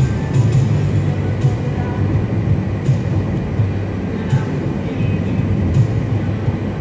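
Road and engine noise inside a moving car: a steady low rumble from the tyres and engine at cruising speed.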